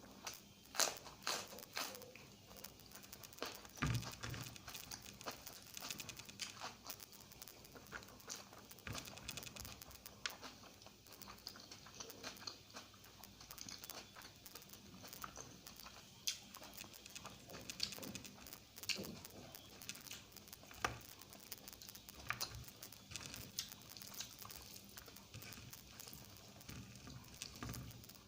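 Close-miked eating sounds of egg curry with rice being eaten: irregular chewing, mouth clicks and smacks.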